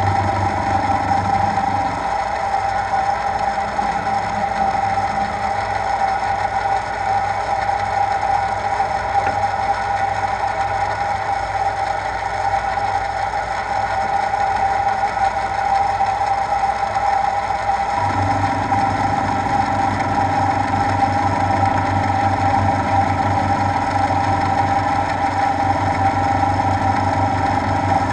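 Milling machine running steadily in its low speed range through direct gears, the end mill cutting into a metal part as the rotary table is turned by hand. A lower hum in the running sound drops away about two seconds in and comes back at about eighteen seconds.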